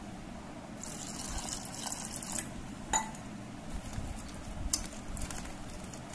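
A hand squishing and working wet semolina-and-flour dosa batter in a steel bowl, with a stretch of wet hissing about a second in, a sharp click near the middle, and short squelching crackles toward the end.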